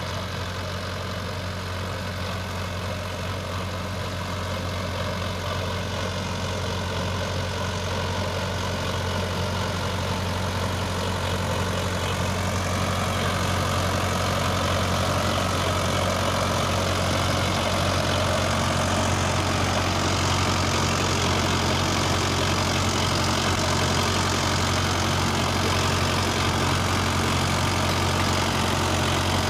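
Sonalika tractor's diesel engine running steadily under load while pulling a rotary tiller through the soil, growing louder over the first half as it comes closer.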